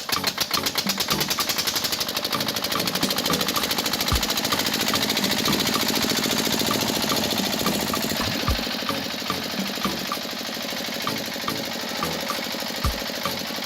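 Small motor running with a fast, even rattle, dropping a little in level about eight seconds in, with light regular ticks and three low thumps spaced about four seconds apart.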